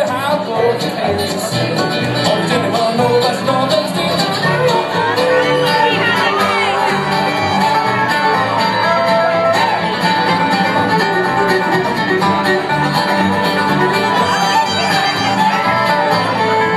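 Acoustic bluegrass band playing an instrumental break live, with no singing: fiddle, banjo, guitar, dobro and upright bass.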